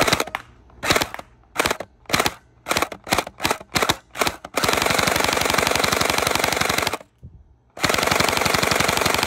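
Splatrball SRB 400 gel blaster firing gel balls: about a dozen quick single shots, then two full-auto bursts of rapid fire, the first about two and a half seconds long, the second a second and a half after a short pause.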